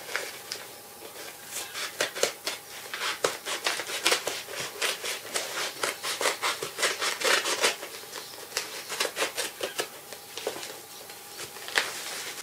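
Yellow padded paper mailer being cut and torn open by hand, a fast run of crackling paper snips and rips through the middle, thinning to scattered rustles near the end.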